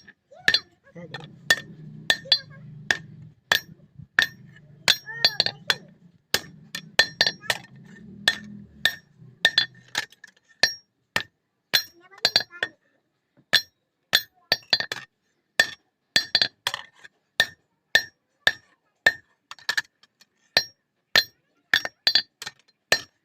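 Blacksmith's hand hammer striking steel on an anvil while forging a katari blade: sharp, ringing clinks about twice a second. A low rumble runs under the strikes for the first ten seconds or so, then stops.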